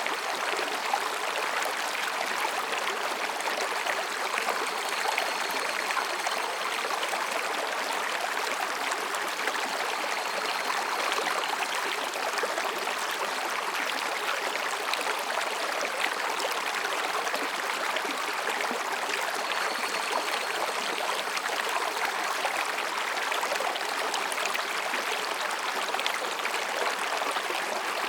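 Mountain stream babbling over and between rocks, a steady rushing and gurgling of water.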